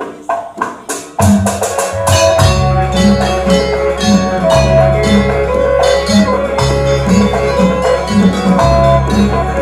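Percussion-led music: a few separate drum strikes, then about a second in the full ensemble comes in with a steady beat and a repeating deep bass line.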